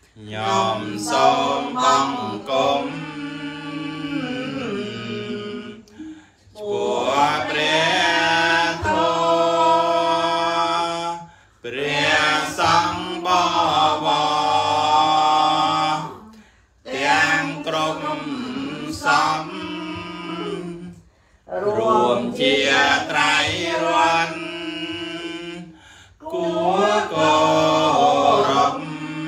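Khmer Buddhist devotional chanting: a prayer recited in melodic phrases of a few seconds each, with short breaks for breath between them.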